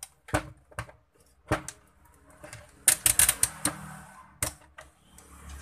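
A few separate knocks and taps, then about three seconds in a quick run of sharp clicks as a digital multimeter's rotary selector dial is turned through its positions, followed by one more knock. The meter is being set up to check the headset cable for a break.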